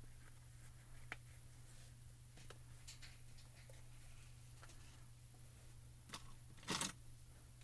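Faint handling noise from paper cardstock and jute twine being wrapped around a card panel: scattered small taps and clicks, then a short, louder rustle near the end, over a low steady hum.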